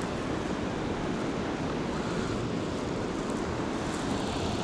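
Steady rushing of river water, even and unbroken.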